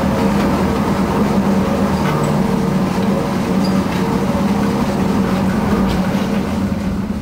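Loaded coal tubs on a cable haulage rumbling along the rails, with a steady hum from the haulage.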